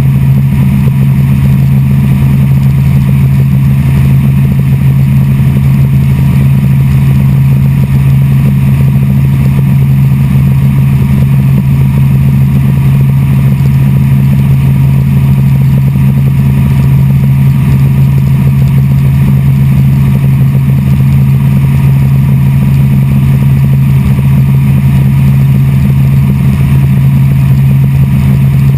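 Helicopter's engine and rotor running steadily in flight, heard from inside the cabin as a loud, unbroken low drone.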